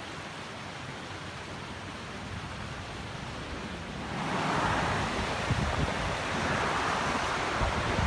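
Steady rushing noise that grows louder about four seconds in, with wind gusting against the microphone in uneven low buffets.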